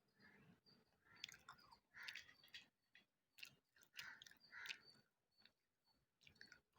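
Quiet, close-up chewing of wet slate chips: irregular gritty crunches with sharp clicks, several a second, as the pieces break between the teeth.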